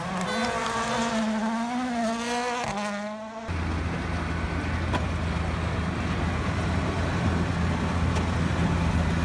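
A Toyota Yaris WRC rally car's turbocharged engine holding a high, wavering note as it comes up the road. A few seconds in, the sound changes abruptly to a motor grader's diesel engine running steadily, with its blade scraping across gravel.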